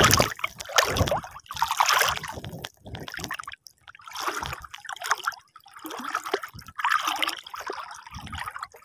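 Muddy shallow water sloshing and splashing in irregular bursts, stirred by people wading through it.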